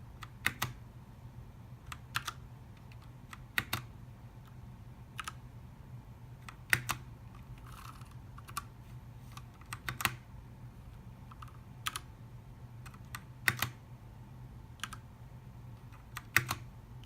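Keys pressed one at a time on a Ducky One TKL mechanical keyboard with linear Cherry MX Red switches, a sharp clack every second or two, several as quick double clacks.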